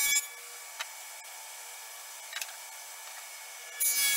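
Table saw with a dado stack cutting a dado across a plywood panel: the cut ends just after the start and a second cut begins loudly near the end. Between the two there is a much quieter steady hum with a couple of light knocks.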